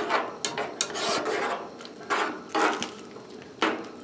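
Metal spoon stirring thickened rice pudding in a saucepan, a series of irregular scraping strokes against the pot.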